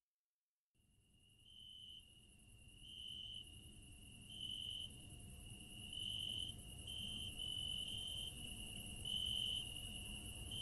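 Crickets chirping: a steady high-pitched trill that swells into louder stretches every second or so. It fades in after about a second of silence, over a low rumble.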